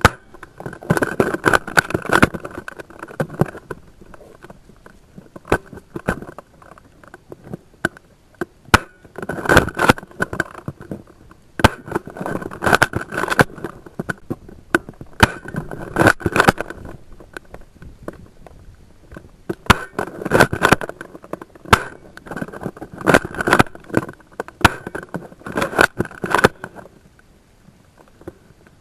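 Repeated bursts of crackling and scraping, about seven clusters each a second or two long, with single sharp clicks between them.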